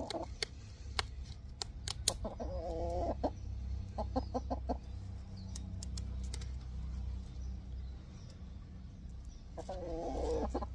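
Hen clucking in short, sharp bursts, with two longer wavering squawks, one about two seconds in and one near the end: she is protesting at being held while her wing is clipped.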